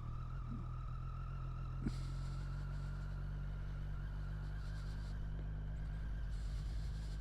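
Triumph Street Triple 765 R's three-cylinder engine running at a steady, even pace, with no revving, and a thin steady whine above it.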